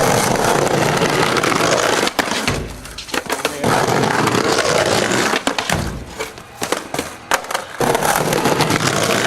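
Skateboard wheels rolling over pavement, with several sharp clacks of the board in the middle of the roll.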